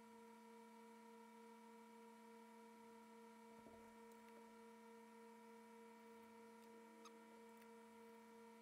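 Near silence: a faint steady electrical hum of shop room tone, with one faint tick about seven seconds in.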